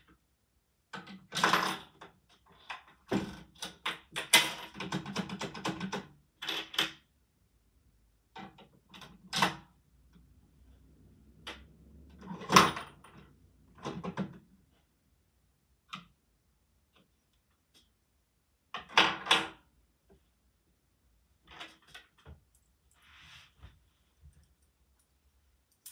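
Plastic Lego bricks clicking and clattering as they are handled, in scattered sharp knocks with a quick run of rattling clicks a few seconds in.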